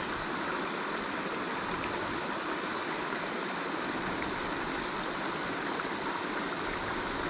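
Small stream running over a rocky riffle in a low cascade: a steady rush of water.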